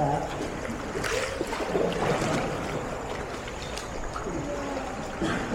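Water splashing and lapping around a paddled sea canoe, with a few sharper paddle splashes.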